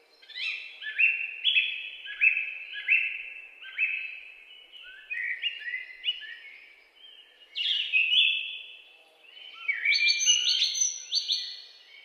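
A songbird singing: runs of clear whistled notes, repeated about twice a second, in several phrases with short pauses between them.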